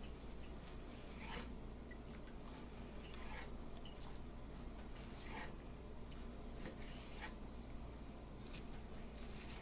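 Knife slicing through a cooked steak on a cutting board: faint, irregular cuts and taps about once a second, over a steady low hum.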